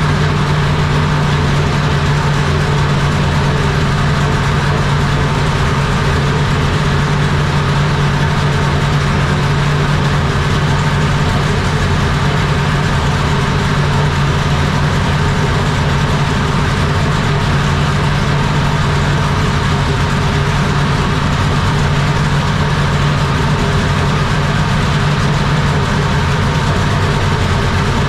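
Dodge R5P7 NASCAR small-block V8, 357 cubic inches and naturally aspirated, running loud and steady at one constant speed on an engine dyno, in its first run after firing up.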